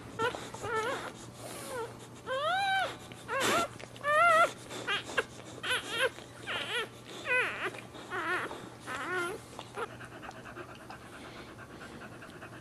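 Newborn boxer puppy crying in a rapid series of short, high squeals that rise and fall in pitch while its mother licks it. The cries stop about ten seconds in.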